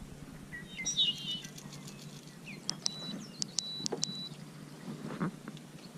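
Small birds chirping in short high calls, over a steady low hum, with a few light clicks and knocks.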